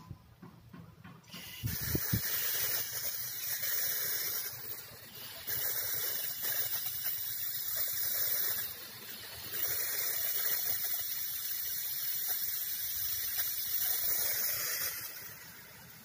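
Pressurised aerosol injector cleaner hissing as it is forced through a motorcycle fuel injector wired to a small battery. The steady hiss starts about a second and a half in, with a few knocks as it begins. It dips briefly twice and fades near the end.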